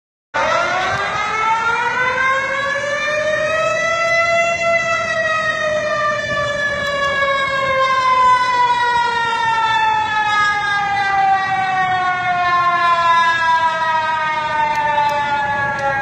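Outdoor warning siren sounding an emergency alert wail: its pitch rises over the first few seconds and then slowly falls for the rest.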